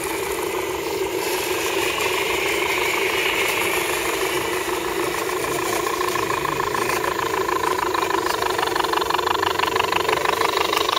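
Electric motors and geared drivetrains of radio-controlled scale crawler trucks whining steadily as they crawl past over a dirt trail. The whine grows stronger in the second half.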